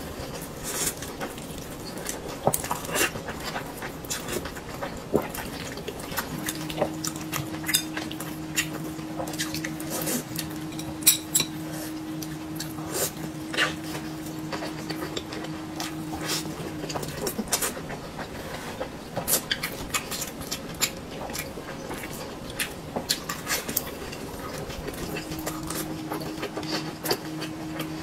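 Close-up eating sounds: biting, chewing and lip smacks from a jianbing (Chinese pancake) wrap, with chopsticks and dishes clicking. A steady low hum comes in about six seconds in, stops around the middle and returns near the end.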